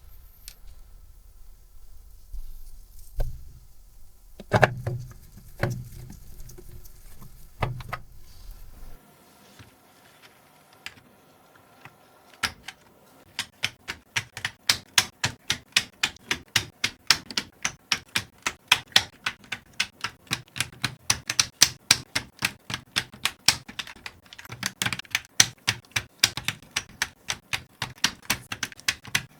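A few scattered knocks and handling taps, then from about twelve seconds in, computer keyboard keys clicking in quick, even succession, about four presses a second, as the keyboard is typed on.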